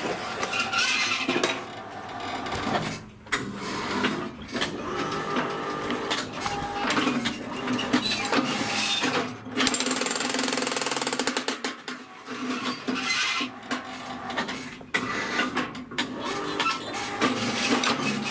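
Homemade electric power shovel's jackhammer attachment running: rapid mechanical hammering with a motor hum, broken by several short pauses.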